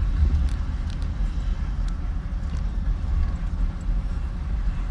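Steady low rumble of a car being driven slowly along a street, engine and road noise, with a few faint clicks.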